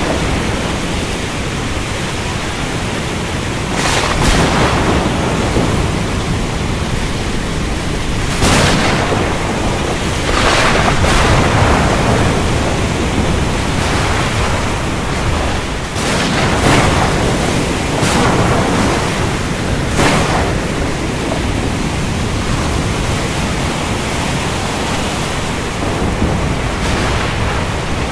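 Thunderstorm at sea: a steady rush of rain, wind and waves, with louder surges swelling and fading every few seconds.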